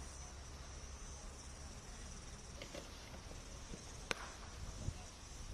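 Insects buzzing steadily in a high-pitched drone, with a single sharp crack about four seconds in from a cricket bat striking a ball in the practice nets.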